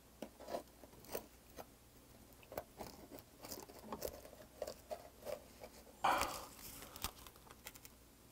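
Faint scraping and clicking of an oyster knife against the rough shell of a giant river oyster as it is pried open, with a louder rasping burst about six seconds in.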